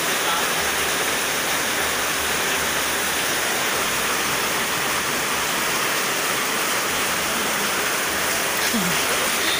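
Steady, even rushing of water during a flash flood, with no let-up.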